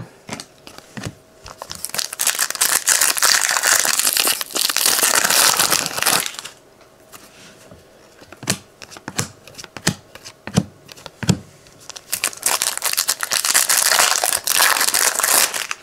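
Foil trading-card pack wrappers crinkling and tearing open in two long stretches, about two seconds in and again near the end, with light clicks of cards being handled in between.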